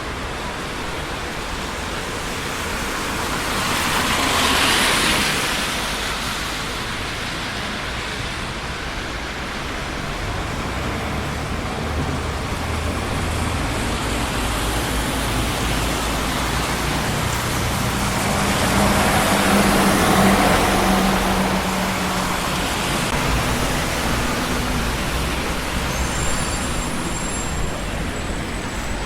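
Steady traffic noise on a busy city street, with two vehicles passing close by, one about five seconds in and a louder one, with an engine hum, about twenty seconds in. A faint high whine sounds near the end.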